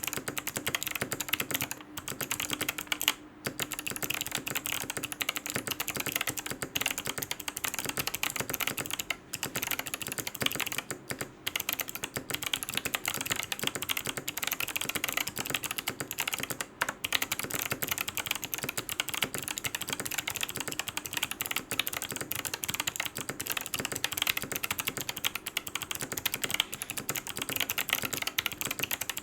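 Fast, continuous typing on an NCR80 V2 mechanical keyboard with clicky Kailh Box White switches on an FR4 plate and PBT Cherry-profile keycaps: a dense run of crisp keystroke clicks, broken by a few short pauses.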